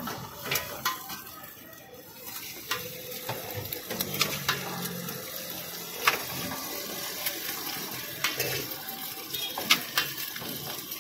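Eggs sizzling in hot oil on a large flat griddle as more eggs are cracked onto it, with a series of sharp clicks from the shells being cracked, spaced a second or two apart.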